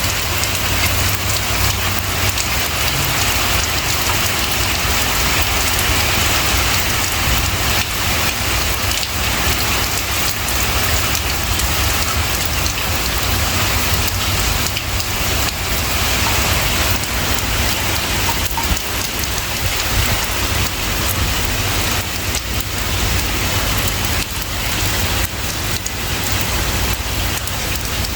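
Steady rain pouring down on a surface: an even, unbroken hiss with a low rumble beneath it.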